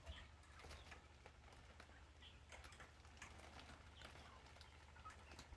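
Near silence, with faint scattered light ticks and a few soft clucks of native chickens.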